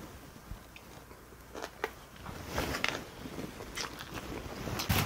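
Quiet chewing of a mouthful of rice and kimchi stew, with a few small sharp clicks over a faint low rumble.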